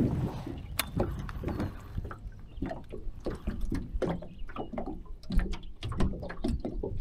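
Small waves lapping and slapping against an aluminum boat hull in irregular splashes and knocks.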